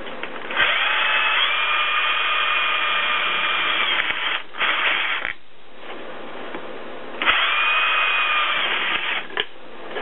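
Cordless drill with a step bit boring holes through the top of an aluminium pop can, running with a steady whine. Two bursts of drilling: the first about four and a half seconds long with a brief stop near its end, the second about two seconds long starting some seven seconds in.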